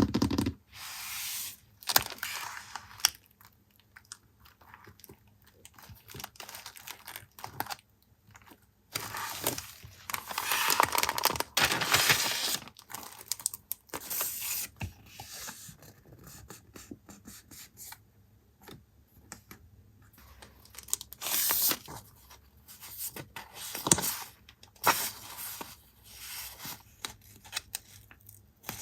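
Paper and stationery packaging handled close up: rustling and tearing, with sharp taps and clicks scattered throughout and a longer, louder rustle from about nine to thirteen seconds in.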